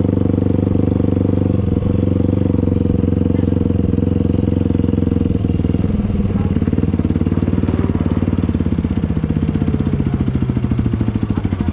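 450 cc single-cylinder sport quad engine running at low speed. About six seconds in the revs drop, and it settles into an uneven, pulsing low-rpm putt as the quad rolls to a near stop.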